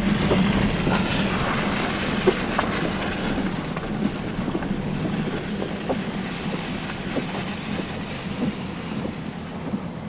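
Vehicle heard from inside the cab: a steady low engine hum with road noise and scattered knocks and rattles, growing quieter toward the end.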